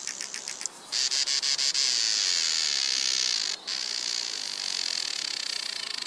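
High-pitched insect buzzing, cicada-like. Rapid pulsed ticking stops briefly under a second in, then turns into a steady shrill buzz, broken once for an instant past the middle.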